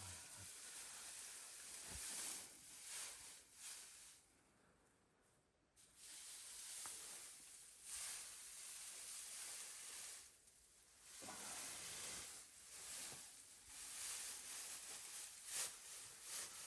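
Hissing and sizzling from a wood-burning stove with fish baking in it, swelling and fading, with a brief drop to near silence about four seconds in.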